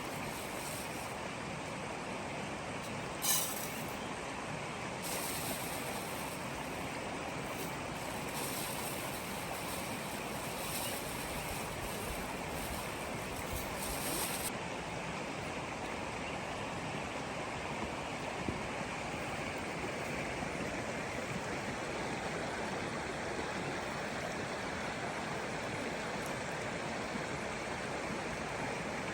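Steady rushing noise like flowing water, with a single sharp click about three seconds in.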